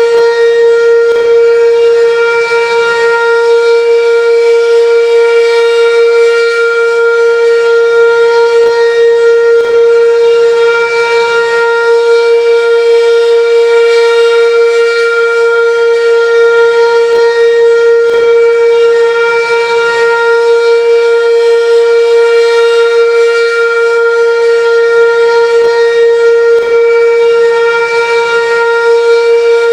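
Sentry 16V2T-B outdoor warning siren sounding a steady alert tone, loud and held at one pitch without rising or falling, with only a slight waver in level.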